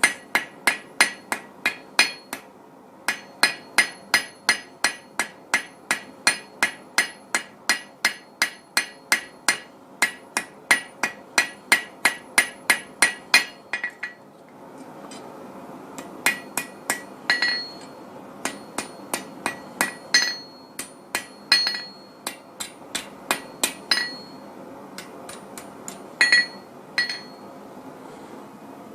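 Cross-peen hammer striking hot steel on an anvil, drawing out the edges of a forged leaf. It begins as a fast, steady run of ringing blows, about two to three a second. About halfway through there is a pause, then a slower, irregular series of blows, some ringing more sharply than others.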